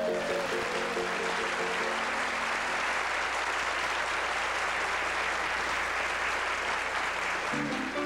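Audience applauding. Under the clapping, the final chord of two plucked acoustic string instruments rings out and fades over the first couple of seconds, and near the end the strings start plucking again.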